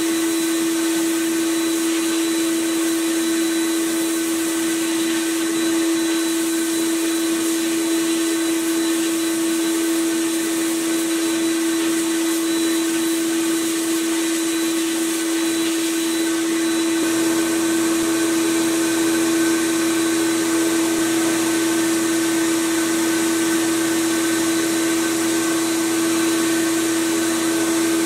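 An electric motor running at a constant speed: a steady high hum over an airy rush, with a lower hum joining about two thirds of the way through.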